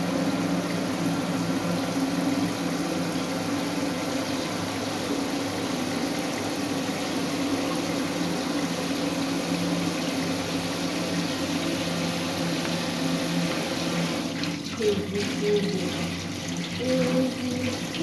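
Steady rush of water running from a tap. Near the end a child's voice hums or sings softly over it in short, wavering notes.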